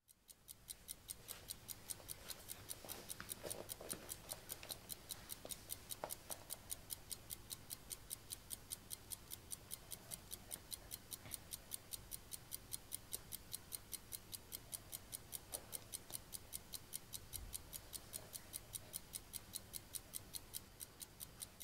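Faint ticking of a clock: quick, even ticks, roughly five a second.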